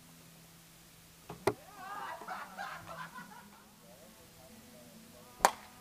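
Two sharp plastic cracks of a hollow wiffle ball striking a plastic wiffle bat, about four seconds apart, the second louder. Between them, a second or so of voices and laughter.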